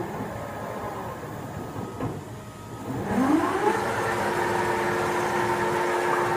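1993 Chevalier FCL 24x80 CNC flat bed lathe running, its spindle spinning up about three seconds in: a whine that rises in pitch and then holds steady at speed, over a steady machine hum.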